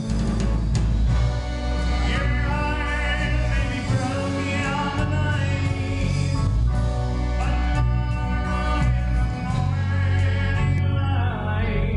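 A live band playing a song, with voices singing in harmony over a strong bass line.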